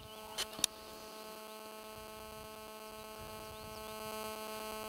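Steady electronic buzz picked up on the recording, a stack of even tones on a base near 217 Hz: the interference a GSM mobile phone puts into nearby audio gear as a call comes in. Two short clicks about half a second in.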